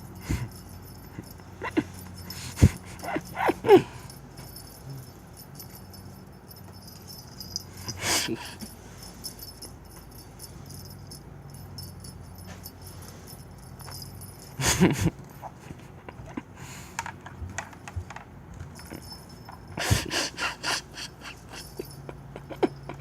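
A pet animal making a few short cries and scuffling noises, scattered through the stretch with quiet gaps between, over a low steady hum.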